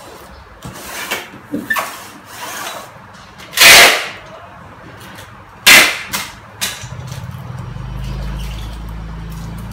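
Packing tape pulled off a hand tape dispenser in two loud, screechy pulls while a cardboard box is taped shut, with smaller scrapes and rustles of the cardboard between them. A low steady hum sets in about seven seconds in.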